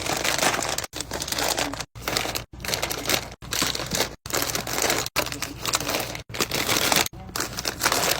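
Plastic snack packaging crinkling as it is handled and stacked, in short rapid clips that cut off abruptly every half second to a second.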